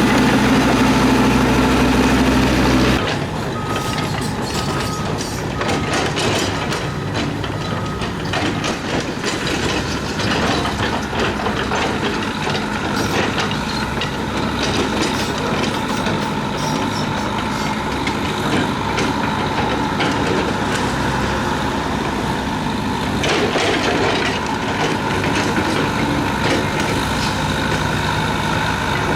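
Heavy diesel earthmoving machinery at work. A steady engine hum changes abruptly about three seconds in to a noisier engine with many rattling clanks, and a reversing alarm beeps about once a second for a few seconds after the change.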